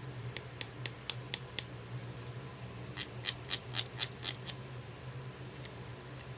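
Small plastic clicks from handling a toy cosmetic-brush set in its plastic stand: a light run of quick, evenly spaced taps, then a louder run of about seven around the middle, roughly four a second, over a steady low hum.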